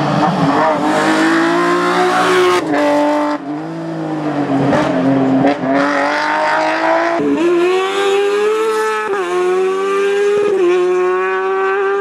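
Race car engines running at high revs in a hillclimb. The pitch drops sharply several times at gear changes or lifts, then climbs again. Bursts of hissing noise come in twice, near the start and around the middle.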